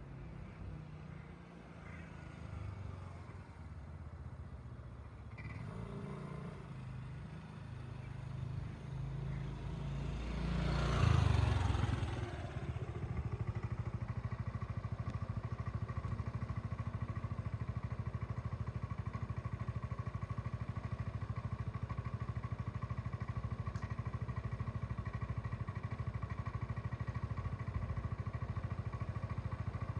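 Motor scooter engine approaching and pulling up close, loudest about eleven seconds in, then idling steadily.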